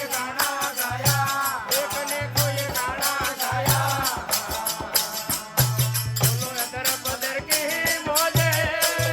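Rajasthani devotional folk music (desi bhajan) with no words: a steady rhythm of shaken and struck percussion over repeated low drum beats, with a wavering melody line above.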